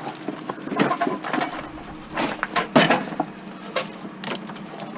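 Irregular knocks and clanks of scrap metal being handled, a few separate sharp hits spread across the few seconds.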